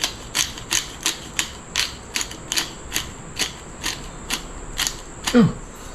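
Pepper grinder being twisted over a bowl, its mechanism clicking about three times a second as it cracks pepper.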